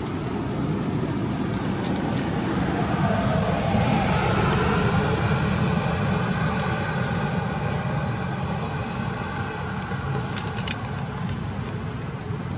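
A steady mechanical rumble like a distant engine, swelling a little between about three and six seconds in, with a constant thin high whine over it.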